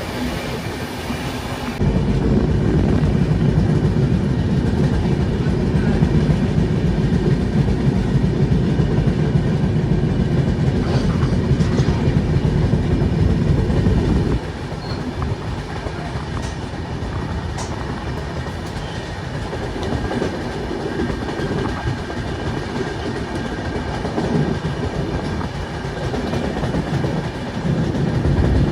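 Train running on the track, its wheels rumbling and clattering over the rails. The rumble jumps louder about two seconds in, drops back about halfway through and swells again near the end.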